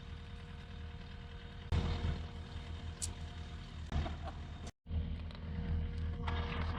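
Diesel engine of heavy earthmoving equipment running steadily, with a low drone and a few steady tones. The sound jumps abruptly twice and breaks off briefly a little past the middle.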